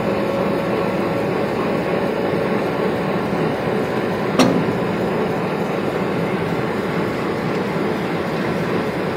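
WDM3A diesel locomotive's 16-cylinder ALCO engine idling steadily at close range, with a single sharp clank about four seconds in.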